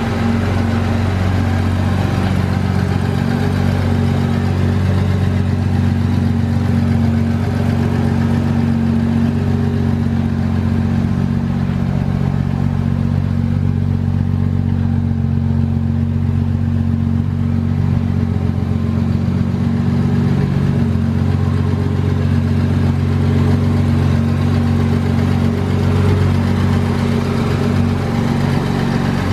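1966 Series 1 Jaguar E-Type roadster's 4.2-litre straight-six engine idling steadily.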